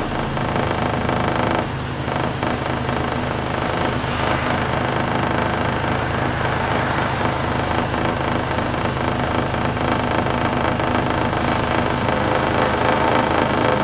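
City bus engine running and road noise heard from inside the bus as it drives, a steady hum with a brief dip about a second and a half in.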